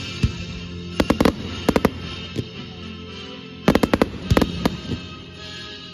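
Fireworks going off: sharp bangs in irregular clusters, a run of several in the first couple of seconds and a thicker volley about two-thirds of the way through. Music plays steadily underneath.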